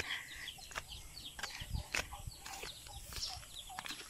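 Small birds chirping in many short, high chirps, over irregular footsteps and knocks about every half second as someone walks.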